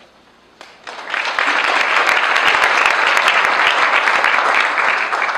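Audience applause that breaks out about a second in and holds steady.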